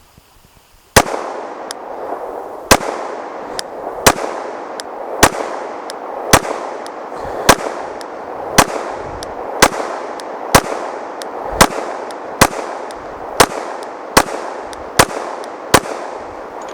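Glock 19 Gen 4 9mm pistol fired slowly, about fifteen single shots at roughly one a second, starting about a second in.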